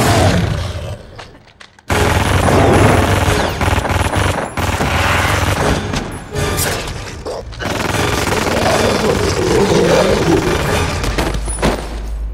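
Loud action-film soundtrack: dramatic score mixed with gunfire and impact effects. The mix drops away about a second in and comes back hard just before two seconds.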